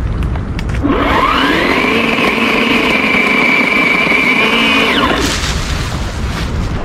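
Cordless battery chainsaw spinning up about a second in, running steadily while cutting through a bush branch for about four seconds, then winding down. Branches crackle as the cut limb falls near the end.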